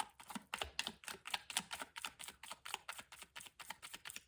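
Tarot cards being shuffled by hand: a rapid, fairly even run of card slaps, several a second.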